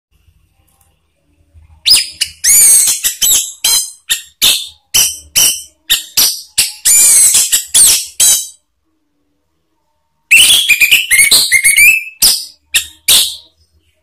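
Male orange-headed thrush singing loud, full song: a rapid run of high, varied notes with gliding whistles for about six seconds, then after a short pause a second, shorter burst of about three seconds.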